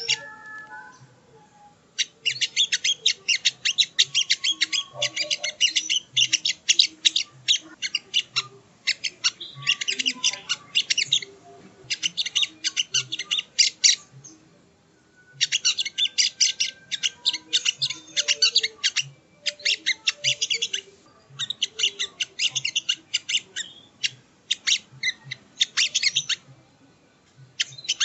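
Sogok ontong (songon) bird song as a lure recording: fast, chattering trains of high chirps in runs of a few seconds, broken by short pauses. It is the kind of call played to a caged bird to rouse it into singing and breeding condition.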